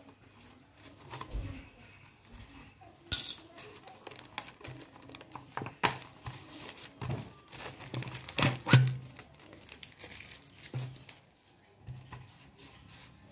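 Thin plastic soda bottle being cut with a utility knife and handled, its plastic crinkling and crackling in irregular sharp bursts as the label is peeled off and the bottle is squeezed.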